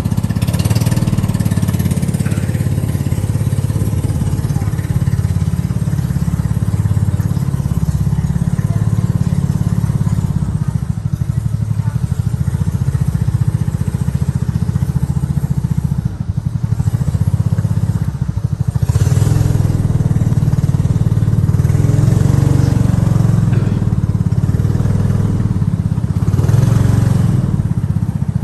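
Small engine of a motorized outrigger boat running steadily under way, a constant low drone. Brief rushes of hiss come in about two-thirds of the way through and again near the end.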